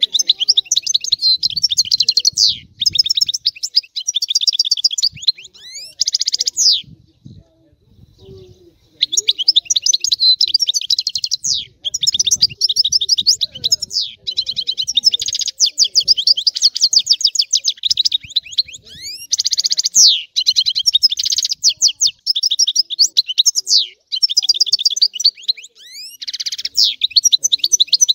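European goldfinch singing: rapid, dense twittering song with quick rising and falling notes, delivered in long phrases with a pause of about two seconds around seven seconds in.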